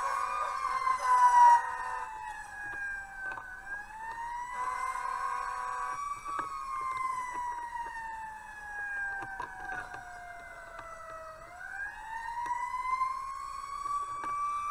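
Fire engine's siren wailing, its pitch rising and falling slowly over several seconds, heard from inside the cab. Two steady horn blasts sound over it, the first about a second in and the second around five seconds in.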